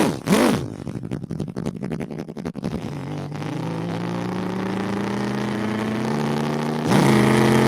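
A man imitating a V8 engine with his mouth: two quick rising-and-falling whoops, then a fast rattling flutter, then a steady low rumbling idle whose pitch creeps up slightly, stepping louder about seven seconds in.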